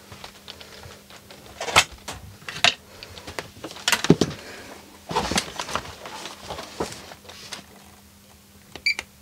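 Scattered clicks and knocks of a small plastic thermostat and circuit board being handled on a workbench and a handheld multimeter picked up, with a steady faint hum underneath. Near the end a short electronic beep sounds as a button on the Fluke 289 multimeter is pressed.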